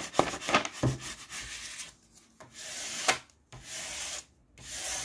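Clear plastic protective film on a diamond painting canvas rustling and crackling as it is handled and laid back down. From about two seconds in, a flat plastic scraper is rubbed over the film in about four long strokes, smoothing it down.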